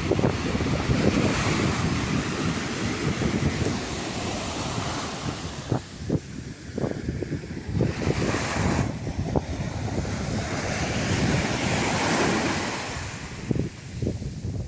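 Sea waves breaking and washing up on a beach, the surf swelling and easing, with wind buffeting the microphone.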